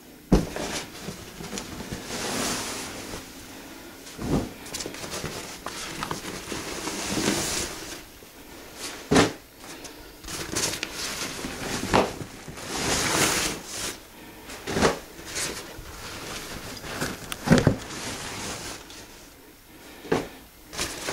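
A nylon hiking backpack and its packed gear being handled and rummaged through: fabric rustling and scrunching, with several dull knocks and thumps as items shift against each other.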